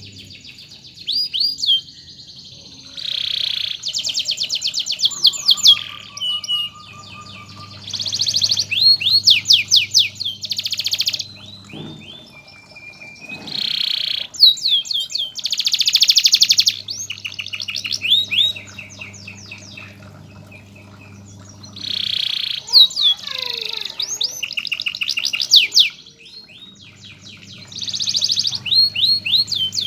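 Canary singing long, loud song phrases of rapid trills and rolls, in bursts of a few seconds with short pauses between.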